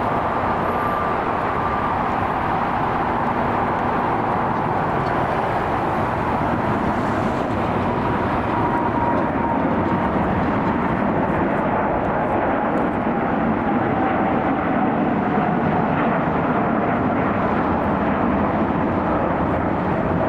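Jet airliner flying by: a steady rushing engine noise with a thin whine that slowly falls in pitch, growing slightly louder about halfway through.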